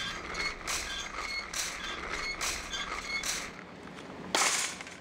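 A rhythmic mechanical creak: a squeak repeating roughly once a second, with a louder scraping burst about four and a half seconds in.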